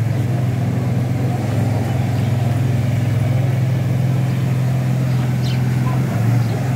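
Steady low engine hum of a motor running at idle, with a brief dip about six seconds in.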